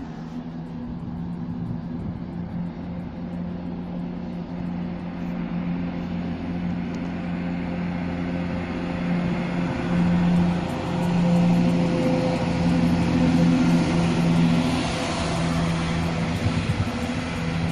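Two-car Class 170 Turbostar diesel multiple unit arriving, its underfloor diesel engines droning steadily and growing louder as it approaches, loudest about two-thirds of the way through.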